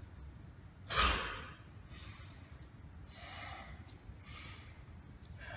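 A man's breathing as he works through martial-arts movements: one sharp, loud exhale about a second in, then several softer breaths at roughly one-second intervals.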